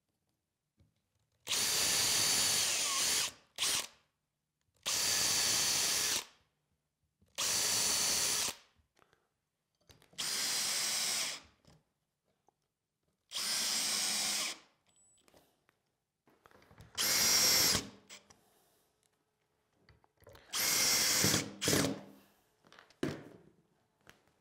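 Cordless drill running in seven short bursts of about a second or so each, with a steady motor whine, as screws for hairpin leg mounting plates go into a plywood tabletop. One run, about two thirds of the way in, is shorter and louder.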